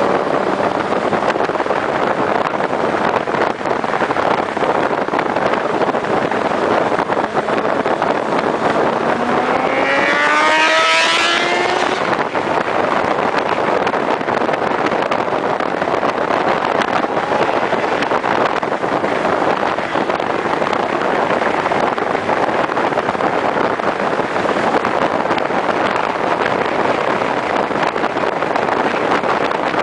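Motorcycle riding at speed, heard from on the bike: heavy wind rush on the microphone over the engine. About eight seconds in, the engine revs up for a few seconds in a rising pitch as the bike accelerates, then drops back into the steady wind noise.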